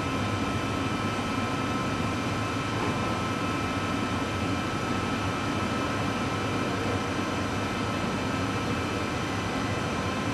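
Steady mechanical hum and hiss with several faint, constant whining tones, unchanging throughout: background machinery or ventilation noise in a workshop.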